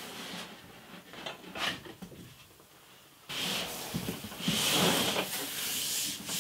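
Cardboard packaging being handled. Faint rustling as a glossy slip cover comes off a large box, then, a little over halfway through, a louder, steady rubbing and scraping as the cardboard box is slid and turned on a tabletop.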